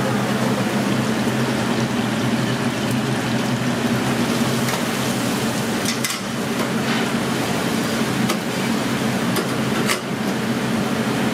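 Battered fish frying in a commercial deep fryer: the oil bubbles and hisses over a steady kitchen hum. In the second half come a few sharp metal clinks as the wire fryer baskets are handled.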